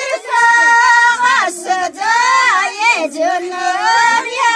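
A high voice singing a slow melody unaccompanied, with long held notes that waver and bend between short breaks.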